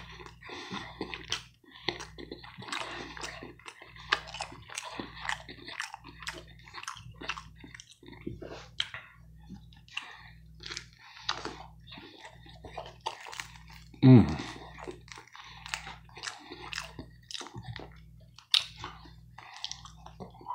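A person chewing a mouthful of DiGiorno pan pizza crust close to the microphone: moist mouth clicks and light crunches, with one louder mouth noise about two-thirds of the way through.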